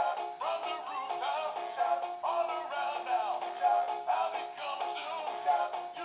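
Singing toy dog playing a song with an electronic singing voice through its small built-in speaker; the sound has almost no bass.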